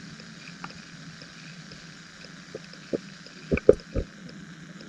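Underwater sound picked up by a submerged camera: a steady low hum, with a few short knocks and pops, most of them about three to four seconds in.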